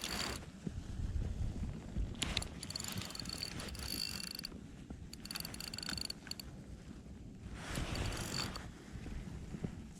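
Spinning reel being cranked in short bursts with pauses between them, its gears whirring with a high whine: a stepped jig retrieve.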